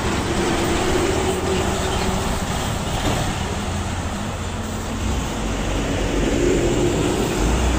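Heavy diesel trucks passing close by: a container tractor-trailer and then a box truck, their engines and tyres making a steady rumble.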